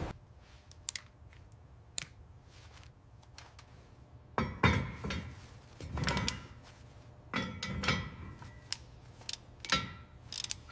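Workshop metalwork: scattered metal clicks and knocks from hand tools, with several louder clanks that ring briefly, irregularly spaced.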